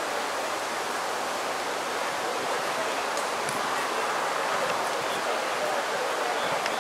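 Steady murmur of a large outdoor crowd talking at a distance, blended into an even wash of noise with no single voice standing out.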